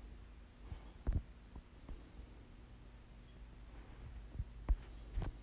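Faint steady low hum with a few soft thumps, one about a second in and several close together near the end.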